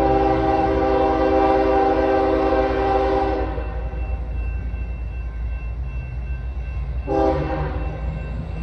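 Union Pacific diesel locomotive's air horn sounding for a grade crossing: one long blast, then a short one about seven seconds in, over a low rumble.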